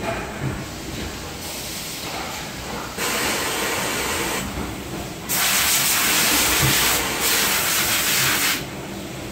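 Factory-floor machinery hum overlaid by three bursts of hissing air, most likely compressed air from a blow gun or pneumatic tool. The last burst is the loudest and lasts about three seconds.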